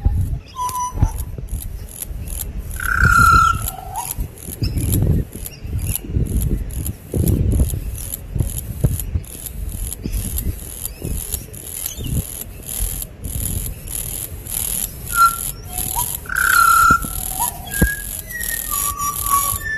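Insects chirring in fast, high pulses, with birds calling in short whistled notes, loudest about three seconds in and again near the end, over low rumbles.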